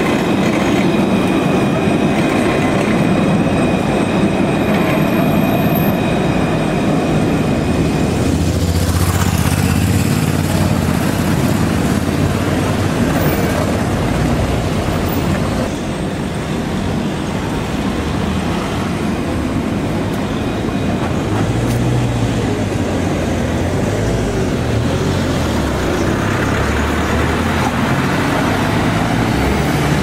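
Alstom Citadis 302 low-floor trams running on street track: a steady rumble of wheels and running gear, with a thin high whine held through the first several seconds.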